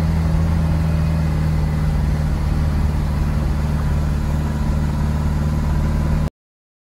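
Steady low engine drone and road noise of a moving vehicle, heard from inside the cabin, cutting off abruptly about six seconds in.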